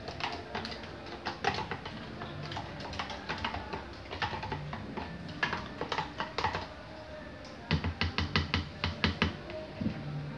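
Repeated clicking and tapping of a utensil against a plastic blender jar as sugar is spooned into the batter, with a quick run of louder taps near the end.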